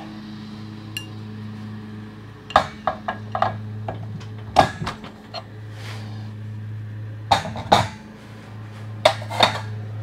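Steel winding bars clinking against a garage door torsion spring's winding cone as the spring is wound a few more turns by hand. The sharp metal clinks come in four short groups a couple of seconds apart, over a steady low hum.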